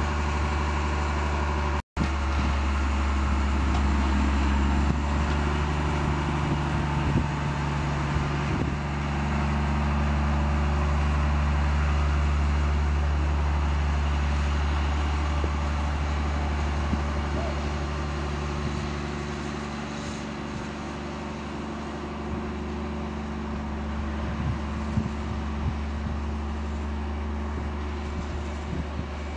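Engine of an overhead-line maintenance railcar running with a steady low hum, getting somewhat quieter about two-thirds of the way through. The sound briefly cuts out about two seconds in.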